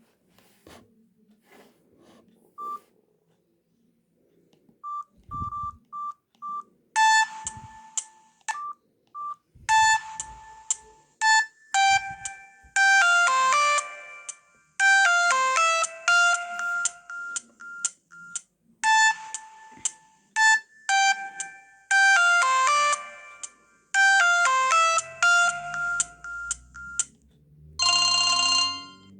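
Samsung SGH-J600 mobile phone playing a ringtone melody through its small loudspeaker, a quick run of bright electronic notes, after several short single-pitch beeps. Near the end the melody stops and a different ringtone starts.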